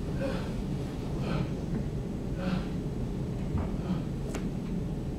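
A person's breathy gasps, about one a second, over a steady low rumble, with a sharp click about four seconds in.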